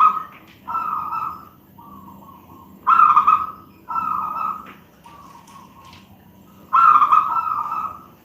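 Zebra dove (perkutut, a local katuranggan bird) cooing: repeated phrases of two loud coos followed by a softer one, coming round about every three and a half seconds.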